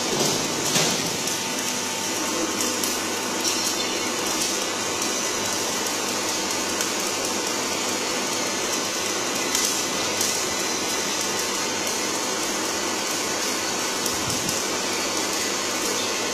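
CNC three-roll profile bending machine running steadily as its rollers feed and curve a flat aluminium bar: an even mechanical whir with a faint steady tone and a few light clicks.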